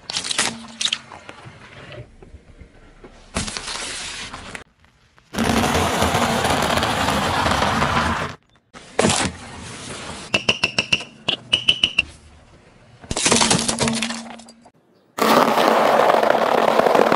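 A car tyre rolling slowly over small brittle objects such as dry pasta and nuts, crushing them with crunching, cracking and popping. The sound comes as several short clips cut together, each starting and stopping suddenly; one stretch near the middle holds a quick run of sharp cracks.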